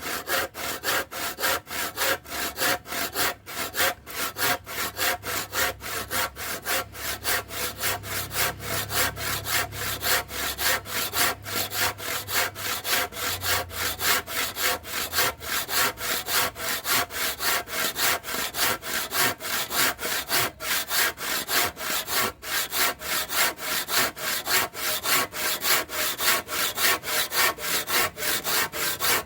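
Kapusi 18-inch crosscut hand saw cutting through wood, its teeth rasping in a quick, even rhythm of back-and-forth strokes without a break.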